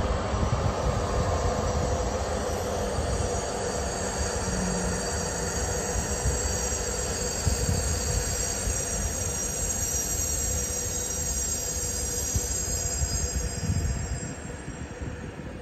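Train wheels squealing on the rails: several thin high-pitched squeal tones over a steady running rumble. Both fade away about 14 seconds in.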